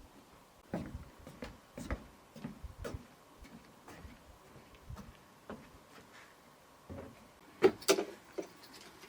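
Irregular light knocks and clicks of things being handled, with two sharper knocks close together near the end.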